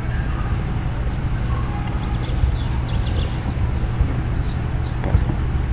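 Steady low background rumble, with a few faint short high chirps and a single click about five seconds in.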